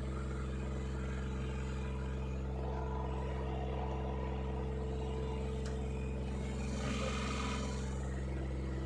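Backhoe's diesel engine running steadily at a constant speed.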